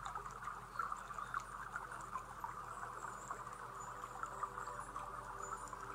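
Insects chirping in a steady, dense chorus, with a few faint short high whistles now and then.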